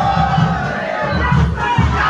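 A large crowd chanting and shouting together in unison over a steady low drum beat, two or three beats a second.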